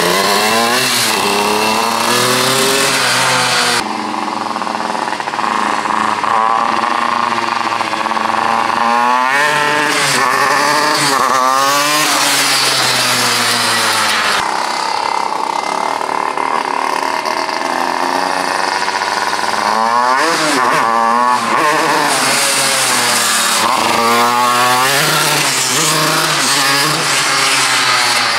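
A 40-horsepower two-stroke engine with a long expansion-chamber exhaust, revving up and dropping back several times as the homemade tractor accelerates on a test drive. It revs much higher, with a power band the owner finds too high and too short, which he blames on the exhaust being too long.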